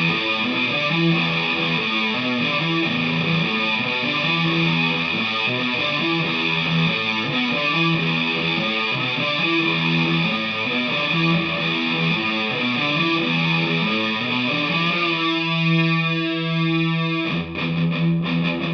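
Electric guitar riff with heavy distortion, played through a DigiTech GNX3 multi-effects preset on a Vintage V100 Les Paul-style guitar into an H&K Attax amp. Repeating riff notes, then a single note held for about two seconds near the end before the riff picks up again.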